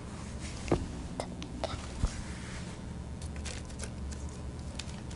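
Scattered light taps and clicks of small objects being handled and set down on a table, over a steady low hum.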